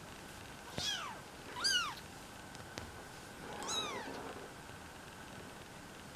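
Kittens almost four weeks old mewing: three short, high-pitched mews, each falling in pitch, about a second in, near two seconds and near four seconds.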